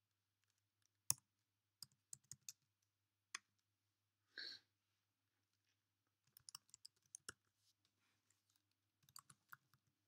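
Computer keyboard keys clicking softly in short scattered runs as commands are typed, with one louder single click about a second in and a brief soft hiss in the middle.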